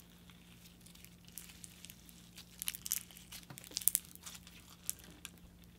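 Thick clear fishbowl slime with fishbowl beads being stretched and squeezed by hand, giving quiet, scattered crackles and crunchy clicks. The clicks come thickest in the middle.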